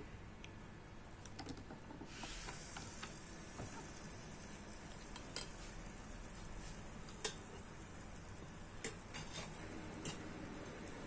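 Waffle batter sizzling on the hot plates of an electric waffle maker, a soft hiss that starts about two seconds in, with several sharp light clicks and taps of utensils and the lid.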